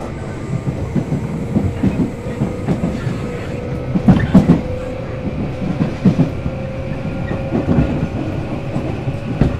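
Tobu 8000 series electric train running at speed, heard from inside the motor car: wheels clacking over rail joints, loudest about four seconds in, over a steady traction-motor hum that creeps slightly higher in pitch.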